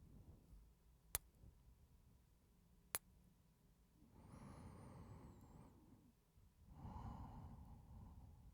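A man's slow, heavy breathing close to the microphone: two long, faint sighing breaths in the second half, after two brief sharp clicks about one and three seconds in.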